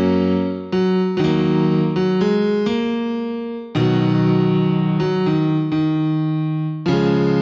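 Background music: a keyboard with a piano sound playing chords that change about every half second to a second.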